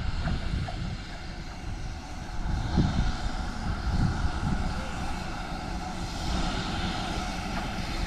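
Wind buffeting the microphone: an uneven, gusting low rumble with a faint hiss above it.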